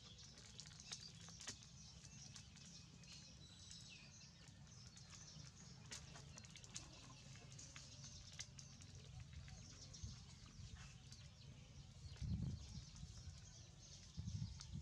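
Near silence: faint outdoor ambience with distant bird chirps and scattered small clicks, and a brief low thump or rustle about twelve seconds in.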